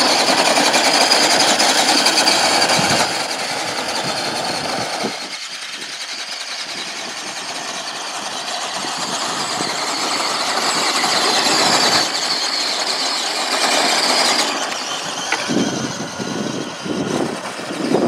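Electric motors and geared drivetrains of two RC crawler trucks, a Traxxas TRX4 Sport and a Redcat Gen 8, whining under full load as they pull against each other on a tow chain, with tyres scrubbing on asphalt. Loud at first, it drops about three seconds in, builds again, then comes in uneven surges near the end.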